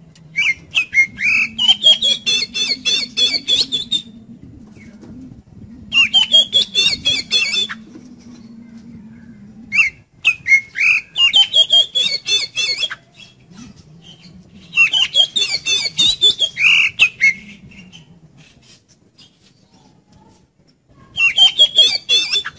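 Oriental magpie-robin singing in five loud bouts of fast, chattering notes mixed with high whistles, separated by pauses of a few seconds.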